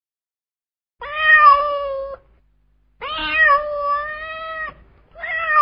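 A domestic cat meowing three times: long, drawn-out calls held fairly level in pitch, with short pauses between them.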